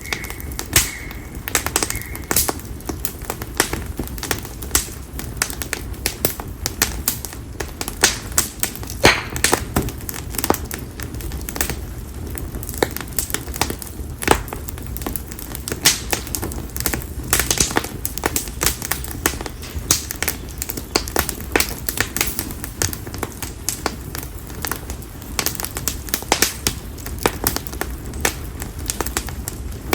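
Campfire of split konara (sawtooth oak) firewood crackling and popping, with sharp snaps at irregular intervals over a low steady rumble of the flames. A brief high steady note sounds in the first two seconds.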